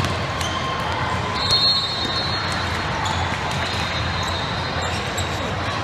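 Basketball game in play on a hardwood court: the ball bouncing as it is dribbled, with short high squeaks that come and go, over the steady echoing noise of a large hall.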